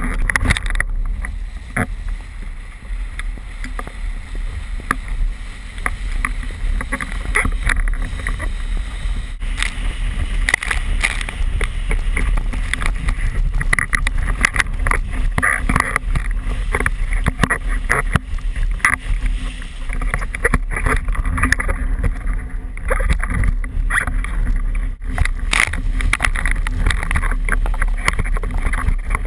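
Windsurf board planing across choppy water: wind buffeting the board-mounted camera's microphone as a steady low rumble, with water rushing past and many short slaps and knocks of chop against the board.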